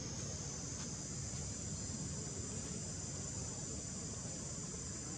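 Insect chorus: a steady, high-pitched drone, with a low rumble underneath.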